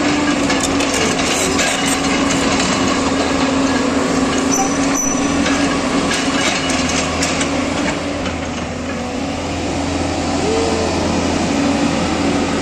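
JCB crawler excavator running with a steady diesel-and-hydraulic hum as it tracks back and forth and slews round, with occasional metallic clanks from the machine.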